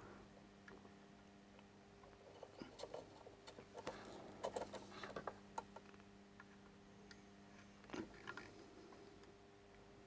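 Near silence: faint small clicks and taps of soldering work on a circuit board, bunched in the middle and again near the end, over a faint steady hum.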